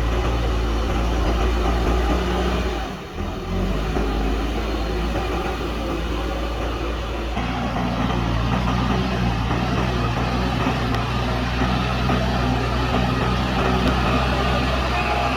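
JCB backhoe loader's diesel engine running steadily, with a brief drop in level about three seconds in.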